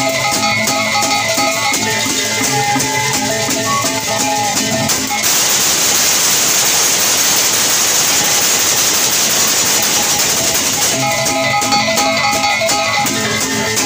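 Lombok gamelan (gendang beleq ensemble) playing: a row of bronze kettle gongs struck with sticks in a quick, rhythmic melody over a rattling cymbal shimmer. After about five seconds the gong tones drop out under a dense rushing hiss, and they return near the end.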